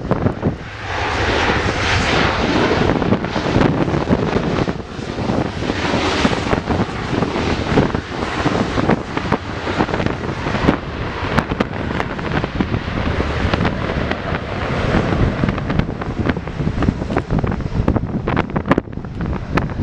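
Jet engines of a Ryanair Boeing 737-800 running as it touches down and rolls out on the runway, swelling about two seconds in and again around six seconds in. Gusty wind buffets the microphone throughout.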